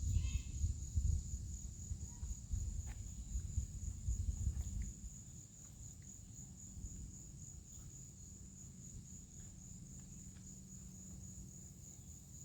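Insects trilling in a steady high, finely pulsing chorus. A choppy low rumble is louder for the first five seconds, then fades away, and a few faint short chirps come and go.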